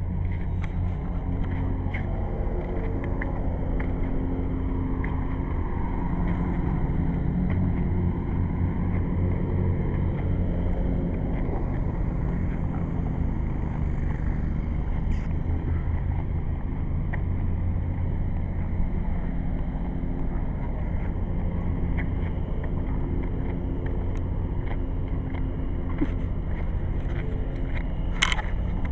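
An engine running steadily at low speed, with a few sharp metallic clicks near the end.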